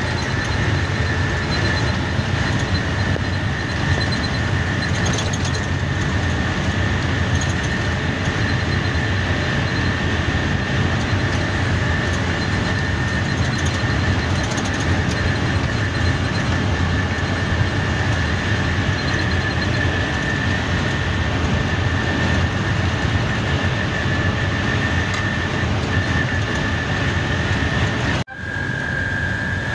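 Cab noise of a vacuum truck driving on a highway: a steady low engine and road drone with a constant high-pitched whine over it. The sound breaks off for an instant near the end.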